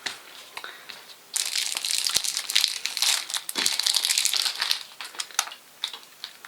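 QiYi Skewb, a plastic twisty puzzle, being turned rapidly for the first time: a few clicks, then a long run of dense, scratchy clacking about a second in, then more scattered clicks.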